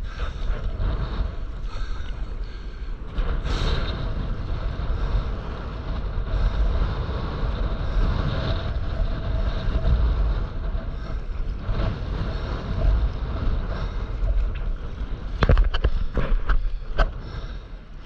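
Wind buffeting the microphone over the rushing water of a breaking wave as a stand-up paddleboard rides it, with a few sharp knocks near the end.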